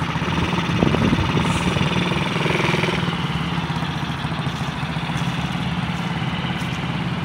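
Small petrol engine of a youth ATV running steadily at low speed as the quad moves slowly across grass, with a slight rise in engine speed about a second in.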